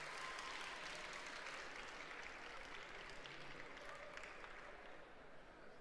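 Audience applauding, a dense patter of hand claps that slowly fades away.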